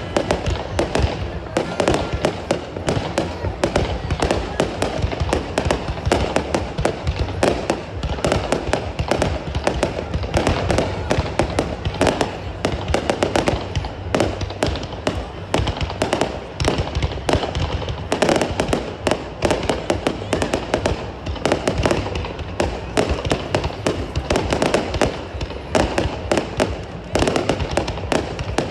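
Fireworks display going off continuously: a rapid, unbroken run of bangs and crackles.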